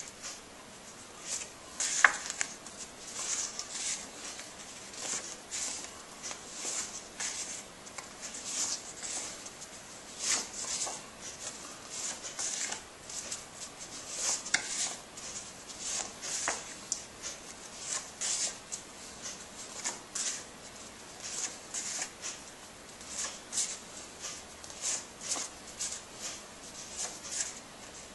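Paper flash cards being flipped one after another from a hand-held stack, a short papery swish about once a second as each card is moved off the front.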